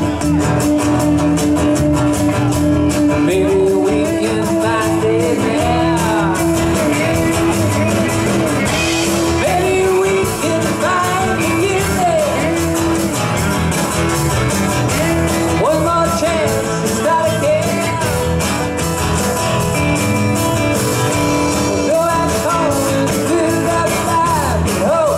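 A rock band playing live on amplified guitars, acoustic guitar and drums, with a man singing lead over it.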